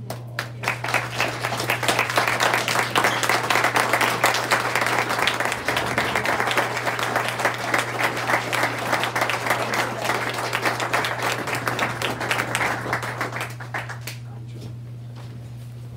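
Audience applauding, a dense patter of many hands clapping that starts just after the opening and dies away about fourteen seconds in.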